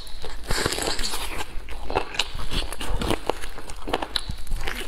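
Biting into and chewing a large chicken leg, close to the microphone: a steady run of short, irregular clicking mouth sounds.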